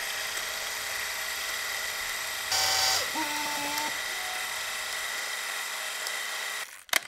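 Intro sound effect under an animated logo: a steady hiss with a thin high whine, a louder burst of noise about two and a half seconds in followed by a short pair of held tones, cutting off suddenly near the end.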